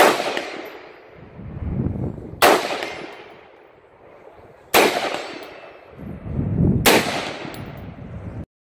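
Four rifle shots from a scoped AR-style rifle fired from a bench rest, a little over two seconds apart. Each sharp crack is followed by a long, rumbling echo. The sound cuts off abruptly near the end.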